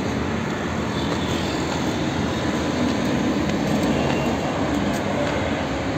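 Steady road traffic noise from passing vehicles, with no clear single event.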